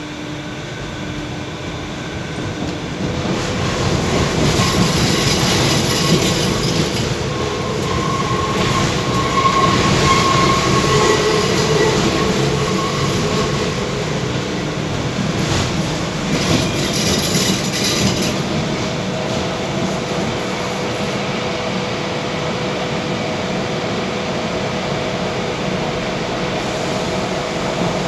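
MF77 metro train heard from inside the car, picking up speed and growing louder a few seconds in, then running steadily through the tunnel. A high ringing squeal from the wheels comes near the middle, and there are bursts of hiss.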